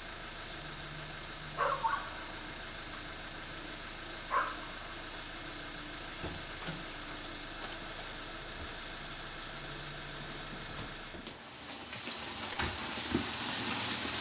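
Steady low hum of a delivery van's engine idling, with two brief sharper sounds about two and four seconds in. Over the last three seconds a louder hissing scrape of cardboard takes over as the monitor's shipping box is handled.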